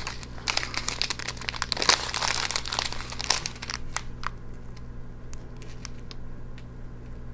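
Small clear plastic bag of turquoise diamond-painting drills crinkling as it is handled, a run of short crackles that dies away about four seconds in, leaving a faint steady low hum.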